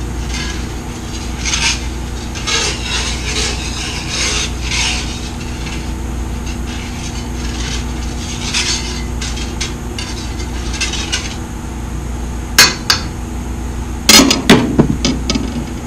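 A utensil scraping and stirring around the bottom of a metal skillet of beef broth, loosening the browned bits to deglaze the pan for gravy. Near the end come a sharp knock and then a burst of loud metal clatters from kitchen utensils.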